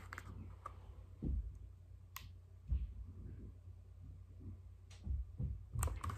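Quiet handling noise from an open paperback picture book held close to the microphone: soft low bumps and rustles, with one sharp click about two seconds in.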